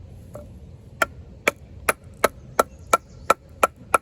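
Rapid sharp strikes of a large D2-steel bowie knife into wood, starting about a second in and coming about three a second, each with a short ringing note.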